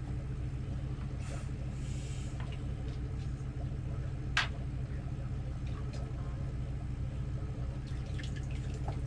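A steady low mechanical hum runs underneath, with faint rustling and one sharp click about four and a half seconds in, as fishing line is pulled up by hand through a hole in the ice.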